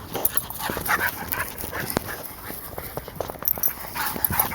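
Dogs running and playing together: many quick paw thuds on the ground, with short dog whines and yips mixed in.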